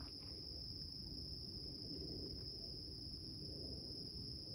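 A steady, unbroken high-pitched drone of an insect chorus, such as crickets in the woods, over a low background rumble.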